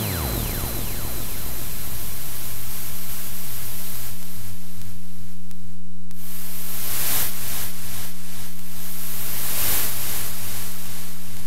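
iAbyssal iOS photo-synthesizer: right at the start its oscillator dives steeply in pitch to a low, steady drone. A hiss of white noise then runs through the synth's filter over that drone, swelling brighter twice as the filter is swept.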